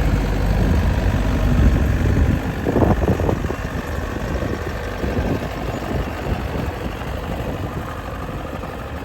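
Bobcat S205 skid steer's diesel engine running, louder for the first couple of seconds, then settling lower and steady after a brief rattle about three seconds in.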